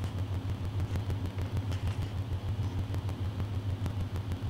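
A steady low hum, with a faint light tap about a couple of seconds in.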